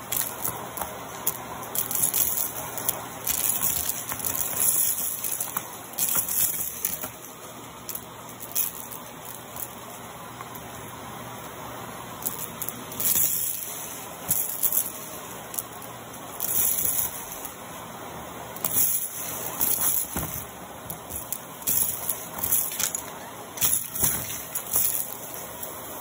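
Vacuum cleaner running steadily through a hose attachment, with repeated short louder bursts as lint, confetti and beads are sucked up.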